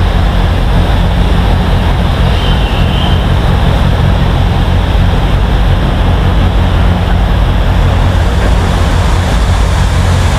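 Steady, loud rumble and hiss of the Neral–Matheran narrow-gauge toy train, its diesel locomotive running with no change in pace.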